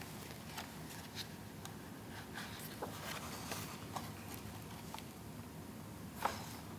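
Paper pages of a softcover photobook being leafed through and handled by hand: faint rustles and small paper ticks, with a louder rustle about six seconds in.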